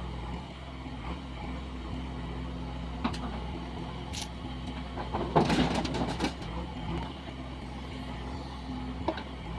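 Heavy diesel machinery engine running steadily, with a short spell of knocking and scraping about five to six seconds in.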